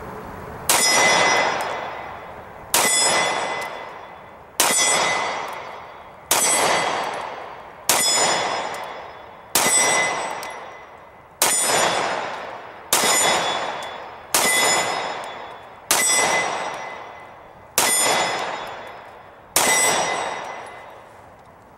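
Twelve pistol shots from a Taurus G2C, fired one at a time about every one and a half to two seconds. Each shot is followed by a ringing metallic clang that fades over a second or two, the sound of a steel target being hit.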